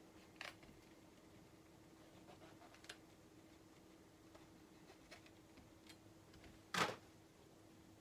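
Faint clicks and taps of a small knife trimming shiitake mushroom stems and mushrooms being set down on a cutting board, with one louder knock just before seven seconds in, over a faint steady hum.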